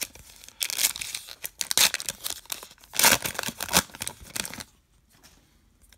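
Foil wrapper of a Topps Star Wars trading card pack being torn open and crinkled by hand, in several tears that stop about three-quarters of the way through.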